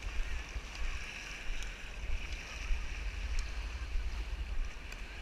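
Wind buffeting the microphone of a handheld action camera in an uneven low rumble, over a steady hiss of small waves lapping at the shoreline.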